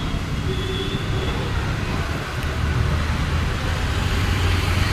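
Road traffic on a busy city street: cars and other vehicles passing, a steady rumble of engines and tyres.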